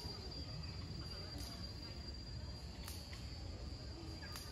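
Insects droning in the background: a steady high-pitched whine with a short high buzz about every second and a half.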